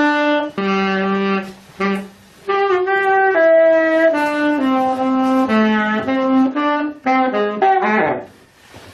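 Solo saxophone playing a slow melody, one held note after another, with two short breaks and a quick downward slide near the end.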